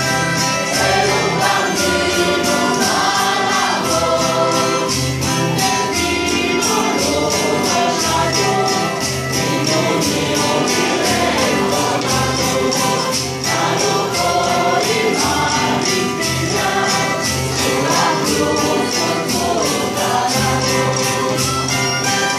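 Mixed choir singing a traditional Christmas song, accompanied by keyboard and plucked strings, with a steady high percussive beat running through it.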